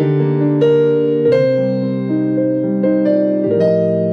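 Slow keyboard music: piano chords held and changing every half second to a second.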